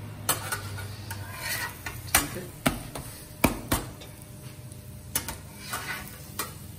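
Metal spatula clacking and scraping against a tawa while working a paratha: a series of sharp, irregular knocks, several of them loud.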